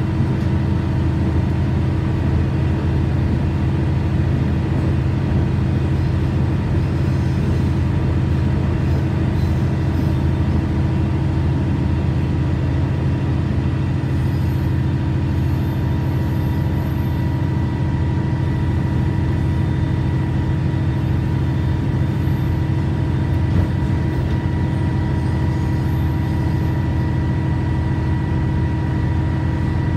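KiHa 100 series diesel railcar under way, heard from inside the cabin: a steady drone of engine and running noise with a constant faint whine over it.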